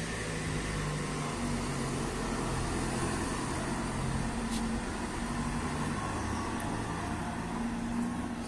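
A delivery van's engine running as the van drives slowly past and pulls away, over a steady hum of street noise.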